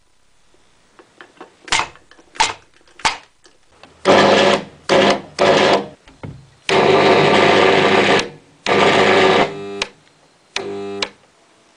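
High-voltage electric arcs from a transformer, crackling and buzzing. A few short snaps come first, then a run of loud buzzing bursts, the longest about a second and a half, ending in quick stuttering pulses.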